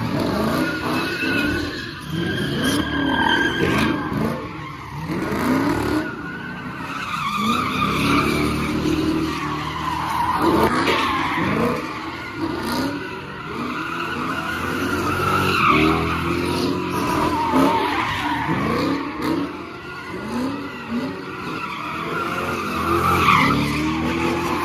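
A car engine revving up and falling back again and again, with tires squealing as the car spins donuts.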